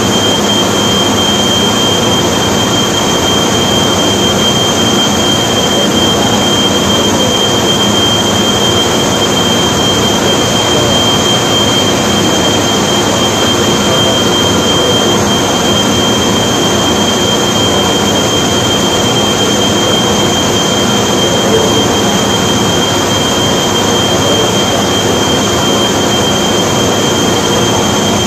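Fabric-dyeing machinery running in a factory hall: a loud, steady mechanical din with a constant high whine over a low hum, unchanging throughout.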